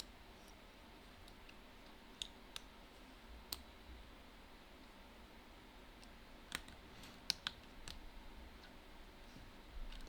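Small sharp metallic clicks and taps from a wire pick and tension tool working the levers inside a Belfry Secure 5-lever padlock, about half a dozen scattered irregularly over the seconds, with the loudest a little past the middle.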